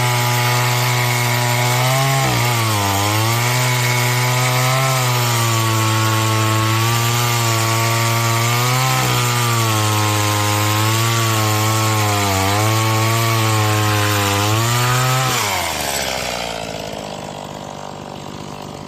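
Stihl MS 180 two-stroke chainsaw cutting wood at full throttle, its engine pitch dipping and recovering as the chain bites under load. About 15 seconds in the throttle is released and the engine drops to a quieter idle.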